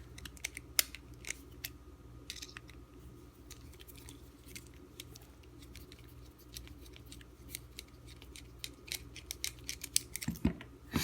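Light metallic clicks and scrapes of a Master Lock 530 padlock being handled as its removable core is worked out of the body: many sharp, irregular ticks, with a short louder noise right at the end.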